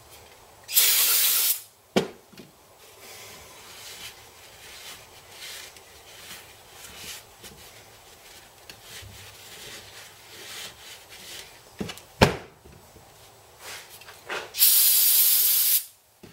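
Aerosol spray can hissing in two bursts of about a second each, one near the start and one near the end, spraying cleaner onto a small motorcycle cylinder head. Rag wiping and rustling between the bursts, with a sharp knock about twelve seconds in.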